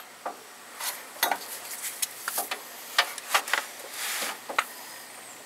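Light metallic clicks and clinks of tools being handled, a dozen or so at uneven intervals.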